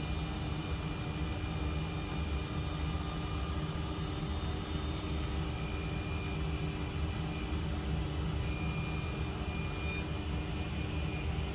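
SIP 01332 table saw running steadily together with the dust-extraction vacuum connected to its crown guard, during a test edge cut. The high hiss thins out near the end.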